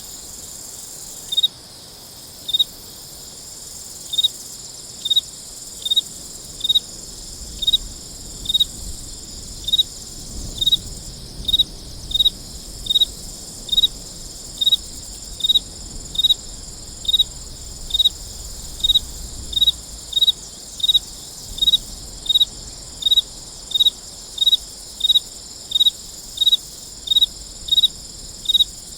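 A cricket chirping in an even rhythm, about one and a half short chirps a second, over a steady high drone of other insects.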